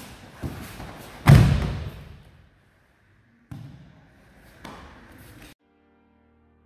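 A body slamming down onto a padded martial-arts mat in a throw, one heavy thud about a second in, with a few lighter thumps and scuffs of bodies and feet on the mat around it.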